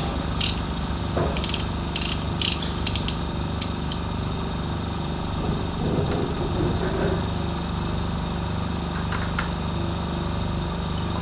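Micropipette volume dial being turned, giving a run of sharp ratcheting clicks over the first four seconds, over a steady low hum.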